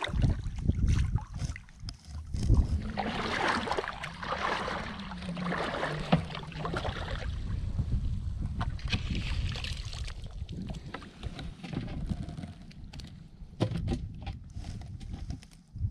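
Shallow seawater splashing and sloshing as a person wades and sweeps hand scoop nets through it, with a low wind rumble on the microphone and scattered small knocks.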